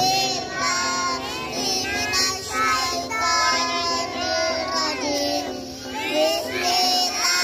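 A young girl singing into a handheld microphone, amplified through a portable PA loudspeaker.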